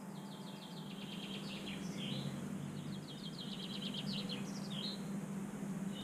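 A small songbird singing two rapid trilled phrases of high repeated notes, the second starting about three seconds in, over a steady low hum.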